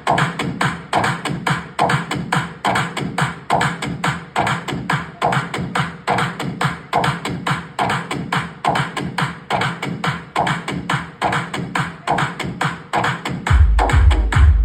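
Electronic dance music played loud through an M M Acoustic MAR Series DJ speaker system during a sound check: a steady beat of sharp hits a little over two a second, with heavy deep bass coming in near the end.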